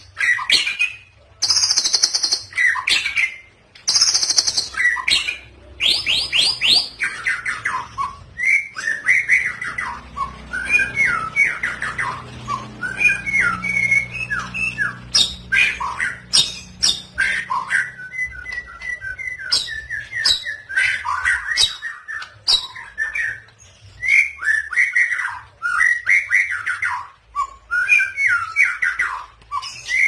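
White-rumped shama singing a long, varied song of loud whistled phrases that slide up and down, broken by rapid high trills in the first few seconds and a quick run of repeated notes about two-thirds of the way through. Its song is filled with mimicked phrases of other birds.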